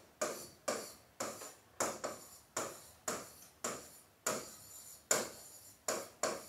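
Pen tapping and stroking on the glass of an interactive touchscreen display while letters are written: a run of a dozen sharp taps, about two a second, each fading quickly.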